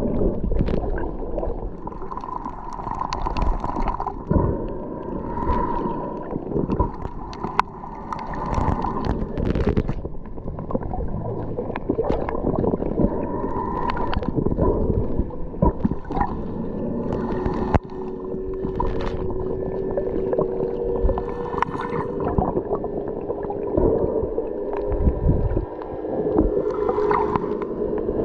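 Muffled underwater sound through a camera's waterproof housing: water sloshing and gurgling against the housing, with scattered knocks. From about two-thirds of the way in, a steady motor hum joins, such as a boat engine makes underwater.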